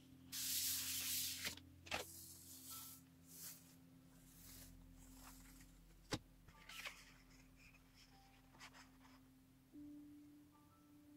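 Hand rubbing a sheet of paper pressed onto an inked gel printing plate, a loud rustle in the first second and a half, then smaller rustles. About six seconds in, a sharp click and paper crackle as the print is peeled off the plate.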